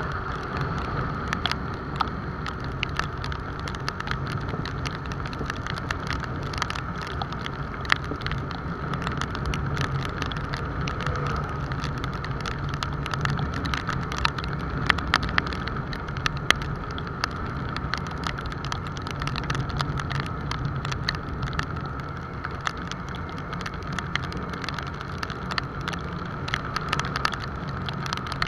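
Motorcycle engine running steadily at cruising speed, with tyre hiss on a wet road and many sharp ticks of raindrops hitting the action camera.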